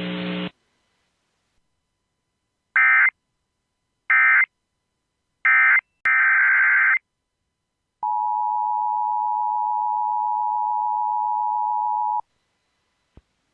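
Emergency Alert System broadcast tones: three short warbling digital data bursts about a second and a half apart, then a longer burst, followed by the steady two-tone EAS attention signal for about four seconds, which announces the next alert message.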